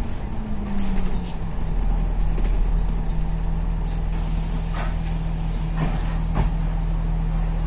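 Bus engine heard from inside the bus, its pitch falling during the first second or so as the bus slows, then running steadily at low speed. A few light clicks or rattles come in the second half.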